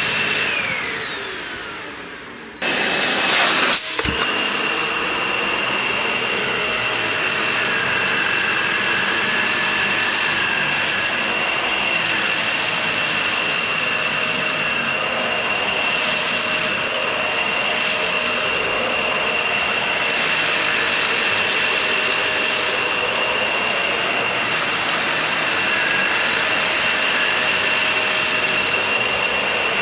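Vacuum cleaner on a shaggy rug: its motor winds down with a falling whine, then starts again about two and a half seconds in with a brief loud rush. After that it runs steadily with a high whine.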